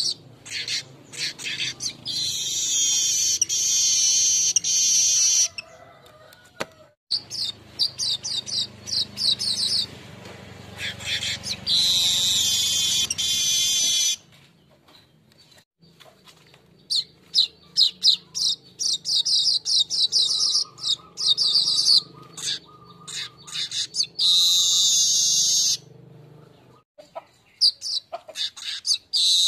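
Golden-headed manyar weaver singing: runs of rapid dry ticking chatter that break into long, buzzy, sizzling high-pitched phrases, three times over, with short pauses between song bouts.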